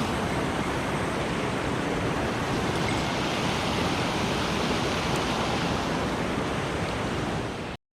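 Mountain stream rushing in a steady, unbroken wash of water noise that cuts off abruptly near the end.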